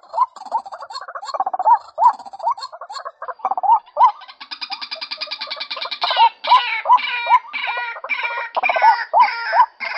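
Female white-breasted waterhen calling: short rising notes repeated several times a second. About four seconds in a harsh, rapid chatter joins, and from about six seconds the notes come louder and fuller, roughly two or three a second.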